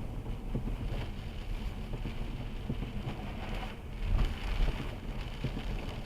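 Car interior driving noise picked up by a dashcam's built-in microphone in rain: low road and engine rumble with small knocks and the hiss of tyres on a wet road, swelling louder for a moment a little past halfway.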